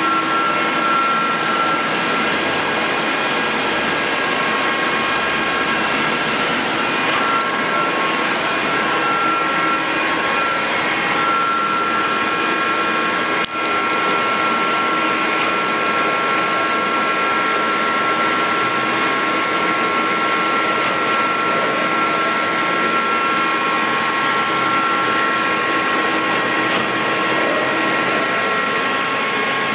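Mori Seiki NL1500 SMC CNC lathe running, a steady mechanical drone with several constant high whining tones. A short high hiss comes back about every six seconds, and a single sharp click falls about halfway through.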